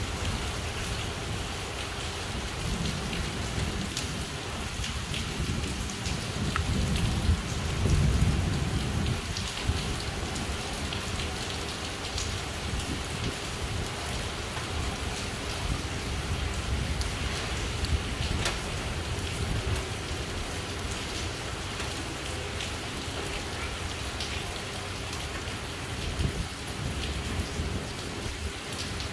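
Heavy rain pouring steadily, with scattered sharp drop ticks. A low rumble swells around eight seconds in and fades again.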